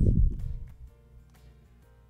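A loud rushing noise fades out within the first half second, followed by soft background music with sustained notes.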